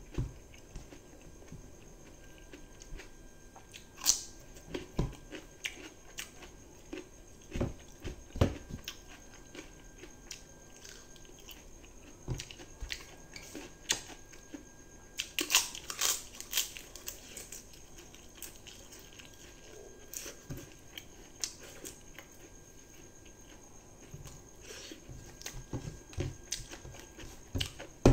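Close-up eating sounds: a person chewing and smacking while mixing and scooping egg and rice with the fingers on a plate. They come as scattered soft clicks and smacks, busiest about halfway through.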